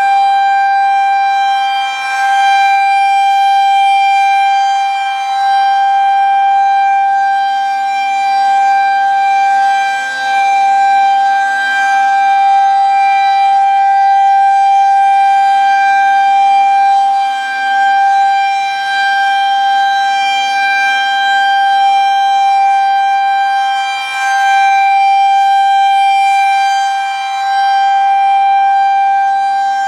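Federal Signal 2001-130 outdoor warning siren sounding its Alert signal: one steady, loud tone held at a constant pitch. It swells and fades every several seconds as the rotating siren head sweeps past.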